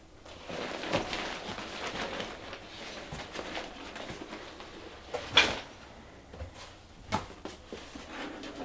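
Rustling and handling of items in an unboxed package, with sharp knocks about five and seven seconds in.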